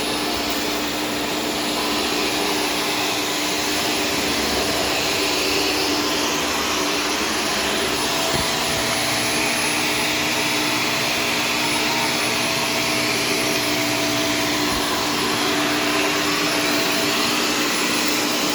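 Shark Stratos self-cleaning vacuum running steadily as it is pushed over the floor, a continuous motor hum with a steady whine.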